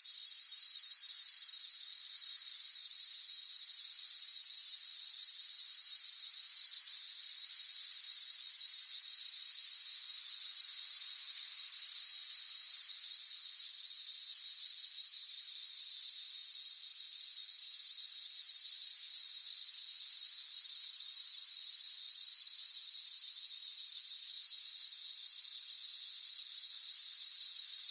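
Cricket chorus sound effect: many crickets chirping together in a steady, dense, high-pitched trill that fades in at the start and fades out at the end.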